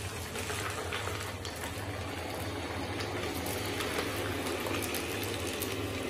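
TECBOT M1 robot vacuum running in cleaning mode: a steady whir of its suction fan and brush motors as it drives over a hard floor, with occasional small ticks as scattered grit and crumbs are drawn in.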